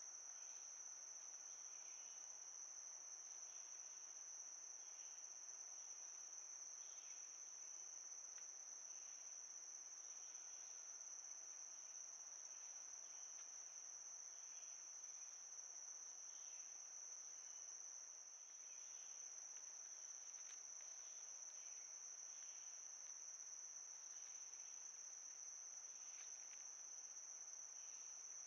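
Crickets calling in a steady, continuous high-pitched chorus, with faint scattered softer chirps underneath.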